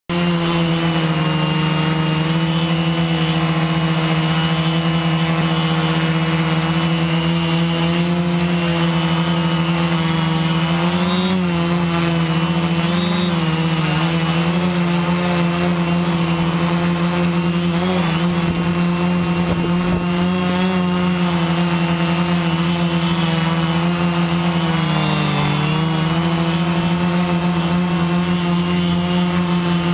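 Multirotor drone's electric motors and propellers giving a steady, loud hum, its pitch dipping and wavering briefly a few times as the throttle changes.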